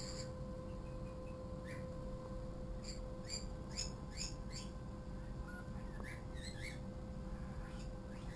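Small birds chirping in short, high calls: a quick run of four or five chirps about three seconds in and another cluster around six seconds, over a steady hum.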